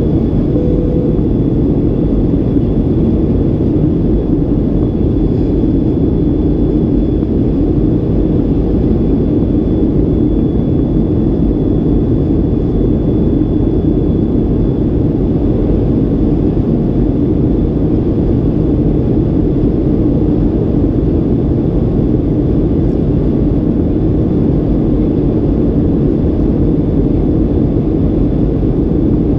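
Steady cabin noise of a Boeing 737-800 in flight: the rush of air along the fuselage blended with the drone of its CFM56 engines, unchanging throughout, with a faint steady high whine.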